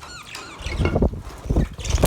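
Budgerigars chirping, with short chirps gliding up and down at the start, then several loud low thumps from about halfway on.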